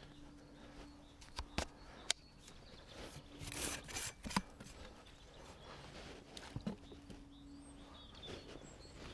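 A fishing landing net being handled: rustling of the mesh with a few sharp clicks and knocks from its frame and pole.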